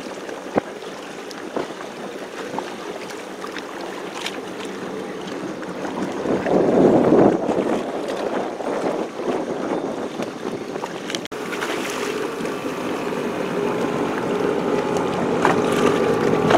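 Motorized watercraft engine running over wind noise on the microphone. It swells louder for a couple of seconds about six seconds in, then settles into a steadier engine tone from about halfway that grows slowly louder toward the end.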